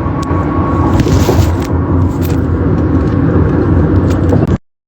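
Steady low rumble of a car in motion, with a few faint clicks, cutting off abruptly near the end.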